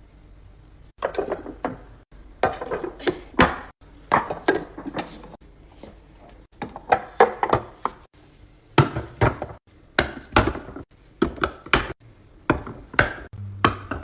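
Repeated sharp knocks and clacks of hard objects being handled and set down, in quick clusters with short breaks between them.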